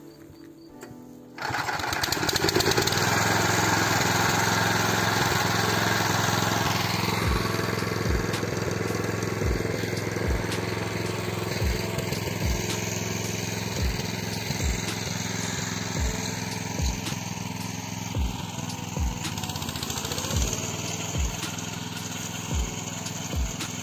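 Neva MB-2 walk-behind tractor with a rotary disc mower running steadily while cutting tall grass. It comes in suddenly about a second and a half in. Background music with a slow, even beat plays under it.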